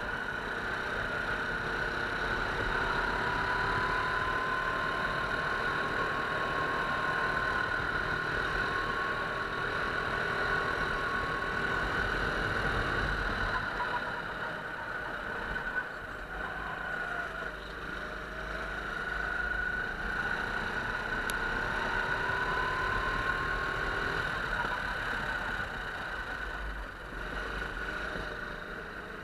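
Go-kart engine running hard on the track, heard from onboard, its pitch rising and falling as the kart speeds up on the straights and slows into corners. It grows a little quieter near the end.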